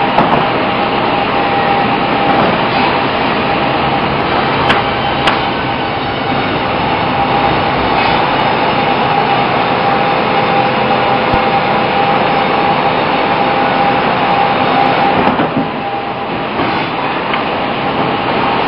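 Sawmill band saw running and cutting an ipe hardwood log: a loud, steady mechanical noise with a steady high whine. Two sharp knocks come about five seconds in, and the noise eases briefly about three-quarters of the way through.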